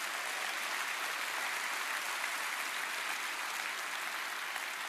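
Large congregation applauding in a steady round of clapping that eases slightly near the end.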